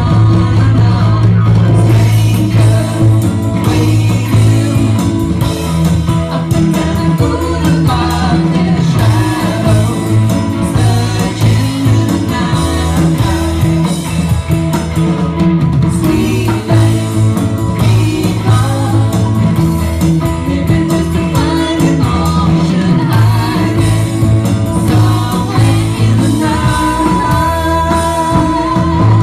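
Rock music with singing over guitar and a strong bass line, playing loudly without a break.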